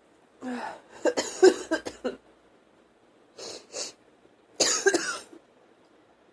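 A woman coughing with a cold: a rapid string of coughs about a second in, two short breaths a little later, then another hard cough near the end.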